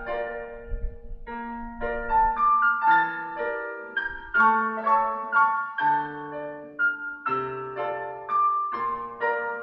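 Piano being played with both hands: a melody in the upper notes over held chords and a low bass line.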